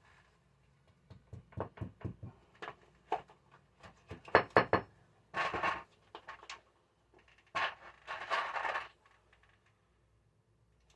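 Work noises from handling tools and material: a run of light knocks and clatters, then two short scraping rushes of noise, the second lasting about a second.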